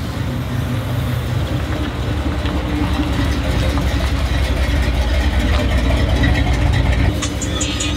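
The red OBS Chevrolet pickup's V8 idling steadily, a deep, even exhaust rumble. Music with a ticking hi-hat comes in near the end.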